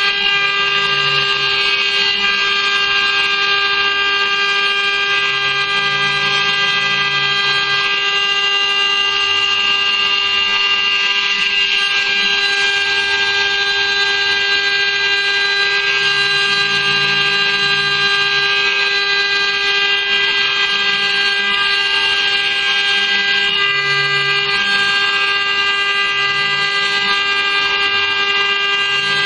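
CNC router spindle running with a steady high-pitched whine while its engraving bit cuts into a copper plate.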